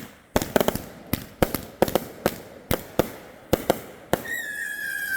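Consumer fireworks going off: a run of sharp bangs, some single and some in quick clusters, about a dozen over four seconds. Near the end a steady high whistle starts and sinks slightly in pitch.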